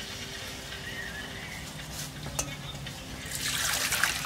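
Water in a stainless steel bowl sloshing and splashing as the bowl is picked up off a steel counter, with a single sharp clink about halfway through and a louder rush of water near the end.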